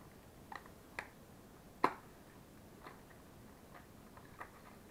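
Scattered light clicks and taps of a small plastic lure box being handled and opened, with one sharper click about two seconds in.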